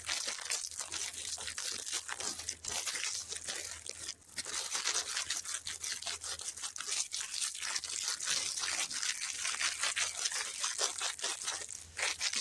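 Sweet packaging being handled, a dense run of crinkling, rustling and tearing with many small crackles.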